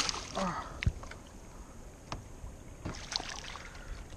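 A hooked fish thrashing and splashing at the water's surface beside a kayak, in several short bursts, the loudest within the first second and again about three seconds in.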